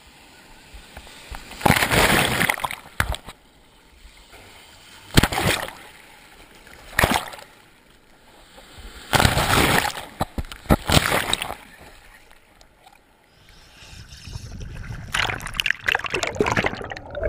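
Surf waves splashing and sloshing over a waterproof GoPro housing held at the waterline, coming in about five loud surges between quieter lulls. Near the end the camera dips under and the sound turns to a low underwater rush.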